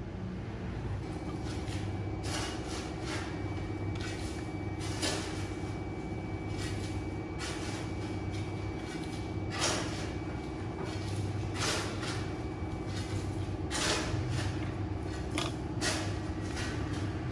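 Fingers handling braided fishing line while tying a knot on a hook: irregular short rustles and scrapes every second or two over a steady low hum.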